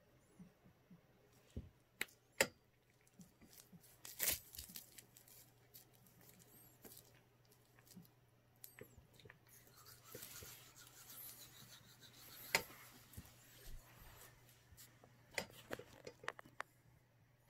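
Plastic bubble wrap crinkling and clicking under a cat as it paws at and chews a toy mouse: scattered sharp clicks, with a longer stretch of rustling about ten seconds in.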